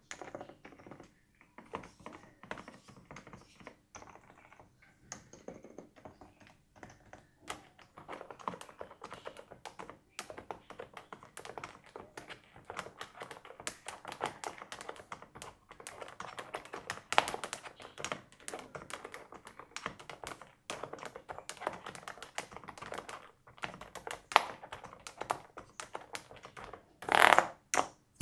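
Epomaker TH108 silent mechanical keyboard being typed on: a steady stream of soft, irregular key clicks, with a louder burst of noise about a second before the end.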